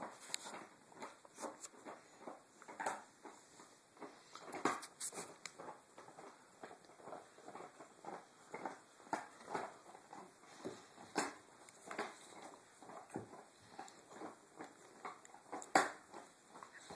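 A puppy and an older dog play-biting and mouthing each other: an irregular run of soft snaps, licks and scuffling, with a few sharper clicks.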